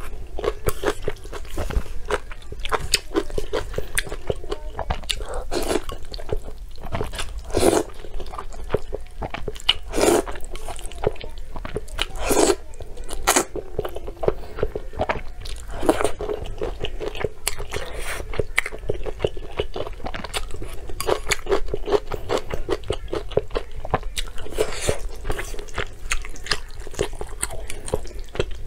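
Close-miked eating of spicy instant noodles: wet chewing and noodle slurping, with a run of quick mouth sounds and several louder slurps about a third of the way in.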